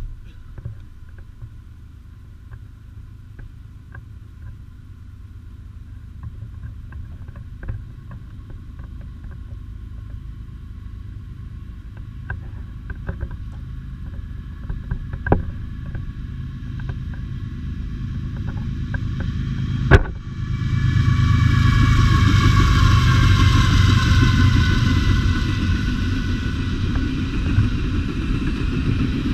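Diesel-electric locomotives of a CSX double-stack container train approaching: a low rumble grows steadily louder for about twenty seconds. Then, after a sharp click, the locomotives pass close and the sound jumps to a loud, steady mix of engine rumble and wheels on rail.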